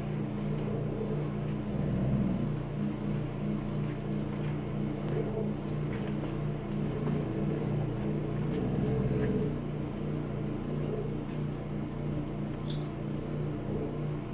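A basset hound's low, gentle growl, swelling twice, about two seconds in and again around nine seconds: the alpha male warning the pack away from the food dish. A steady low hum runs underneath, with a few faint clicks.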